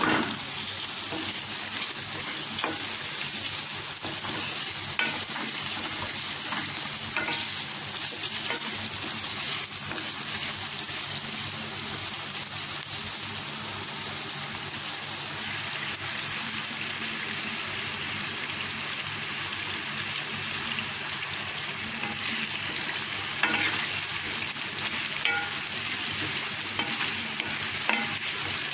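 Mince filling with chopped tomato sizzling steadily in a metal pan. A wooden spatula stirs it, scraping and knocking against the pan now and then.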